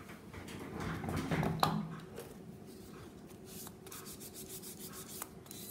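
Light rubbing and faint scratchy strokes of a pad wiping the sticky inhibition layer off a cured gel nail tip, with a soft tap about one and a half seconds in.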